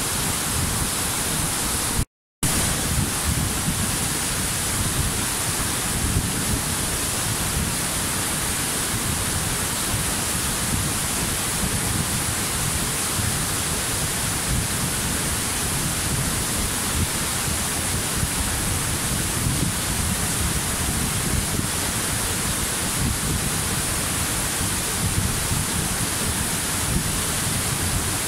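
Waterfall rushing steadily: a constant hiss of falling water over a deep rumble. About two seconds in, the sound cuts out completely for a fraction of a second.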